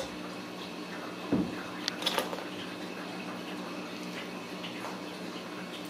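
Kittens shifting about in a small wicker basket over a steady low room hum: a soft thump about a second and a half in, then a few light clicks and creaks just after.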